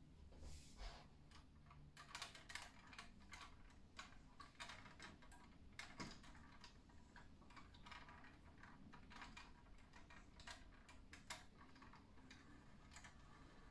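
Faint, irregular clicks and taps from a hand handling a 1:18 BBurago die-cast Range Rover Sport model car, its small metal and plastic parts clicking as it is gripped and moved.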